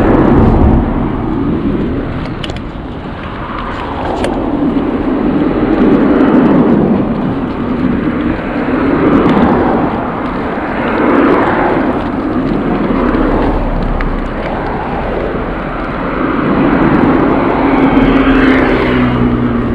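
Road traffic and wind rushing over the microphone of a moving bicycle, swelling and fading every few seconds. A steady engine hum comes in near the end.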